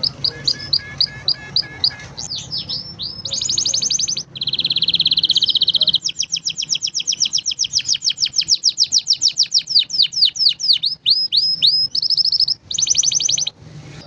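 Green domestic canary singing a continuous song of rapid trills, moving from one repeated-note phrase to the next every second or two, with a long run of fast sweeping notes in the middle.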